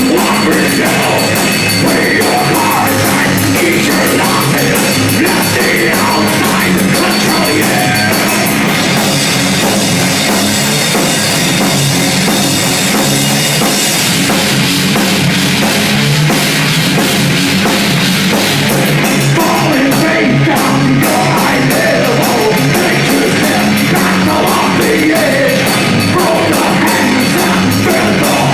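Heavy metal band playing live, with a drum kit driving it; loud and dense throughout.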